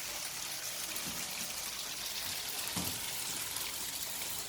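Tofu frying in hot cooking oil in a pan: a steady, even sizzling hiss.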